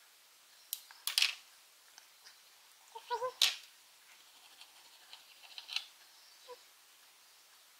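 Scissors snipping through a thin egg-omelette sheet, then a kitchen knife clicking and tapping on a plastic cutting board: a handful of short, sharp snips and clicks, the loudest about a second in and again around three seconds in.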